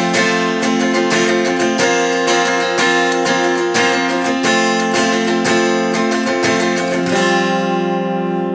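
Semi-hollow Epiphone electric guitar strummed in a steady rhythm, moving through F major, Fsus4, back to F major and then Fsus2 with its open G string. The last chord is left to ring near the end.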